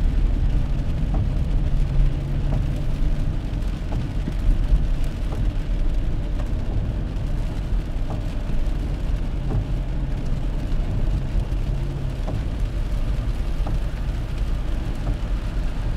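Car driving on a rain-soaked road, heard from inside the cabin: a steady low rumble of engine and tyres on the wet road, with a low engine hum that swells twice. Faint scattered ticks of rain on the car.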